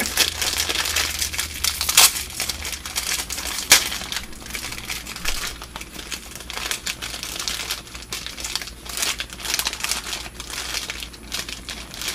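Plastic wrapper of a packaged 7 Days croissant crinkling as it is handled and pulled open, with sharp snaps about two and four seconds in.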